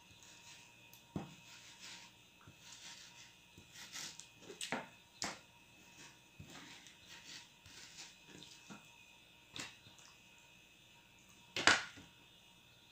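Kitchen knife slicing raw chicken breast on a plastic cutting board: scattered soft taps and scrapes of the blade against the board, with one louder knock near the end as the knife is laid down on the board.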